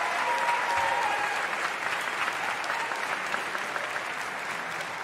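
Audience applause in a concert hall: dense, steady clapping that eases a little toward the end.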